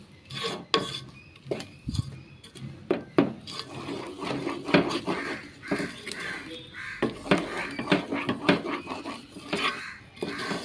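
Wooden spatula stirring a thick jaggery-and-coconut mixture in a pan, scraping through it with irregular knocks against the pan's sides several times a second.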